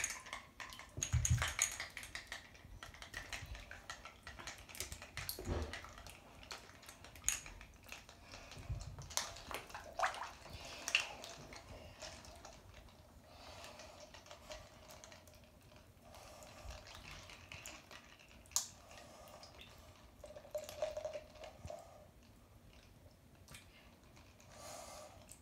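Bathwater lightly sloshing and dripping, with scattered small clicks and taps of plastic Lego pieces being handled.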